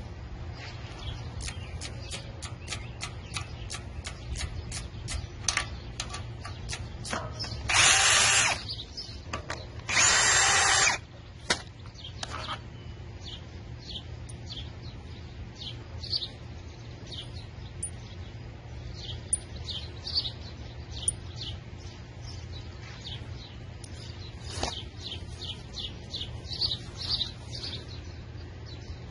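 Cordless drill running twice, each time for about a second, backing out the 3/8 sump bolts from a small mower engine. Light, regular clicking, about three a second, comes before it, and birds chirp in the background later on.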